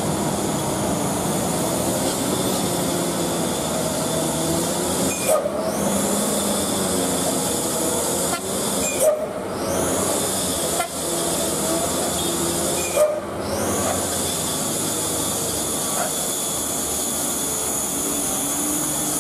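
Heavy diesel trucks and other traffic running slowly around a steep hairpin bend, a steady engine drone, with three short loud bursts about four seconds apart.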